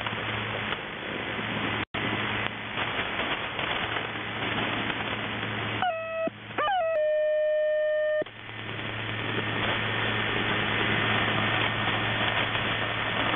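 Shortwave radio static from a receiver tuned to 3243 kHz in upper sideband: a steady hiss with a low hum under it. About six seconds in, a steady tone breaks in for about two seconds, wavers briefly once, then stops, and the hiss comes back.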